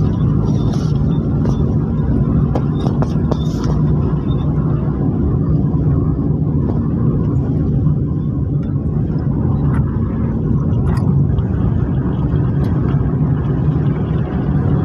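Steady low rumble of engine and road noise heard from inside the cabin of a Suzuki Swift driving along a road.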